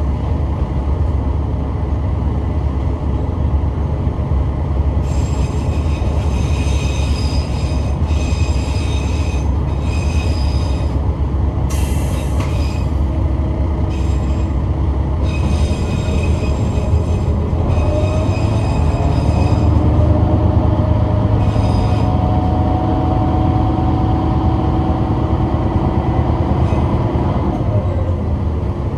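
Kishu Railway diesel railcar running, heard from inside the car: a steady low rumble of engine and wheels. High-pitched wheel squeal comes and goes from about five seconds in until about twenty-two seconds in.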